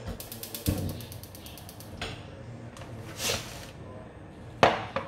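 Kitchen handling sounds: a quick run of rapid clicks ending in a low thump, then scattered knocks and rustles, with one loud sharp knock near the end.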